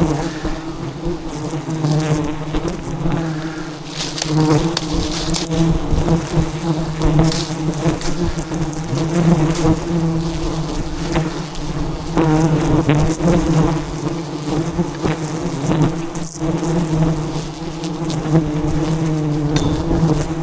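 A large swarm of giant honey bees buzzing around their hive in a loud, steady, low droning hum that wavers slightly throughout.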